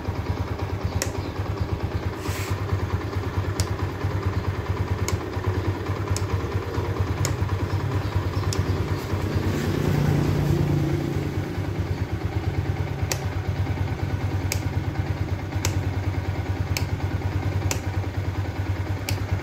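Yamaha 150 cc motorcycle engine idling steadily with a fast, even pulse, swelling slightly about halfway through. A few faint sharp ticks sound over it.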